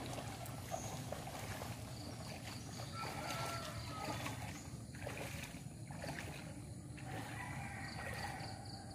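Faint splashing of footsteps wading through shallow floodwater, over a steady low rumble.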